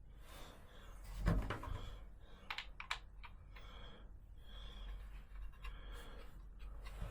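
Light clicks, small taps and a soft knock of a router bit being handled and tried in a trim router's collet, with a cluster of sharp clicks about two and a half to three seconds in.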